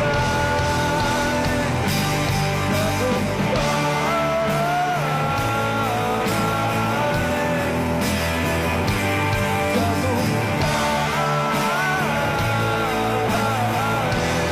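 Background rock music with guitar and a wavering lead melody line.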